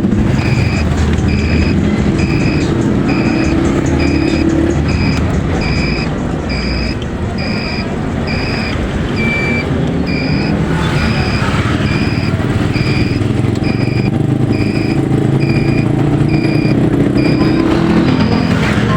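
A vehicle engine running on the road, with a short high beep repeating evenly about twice a second.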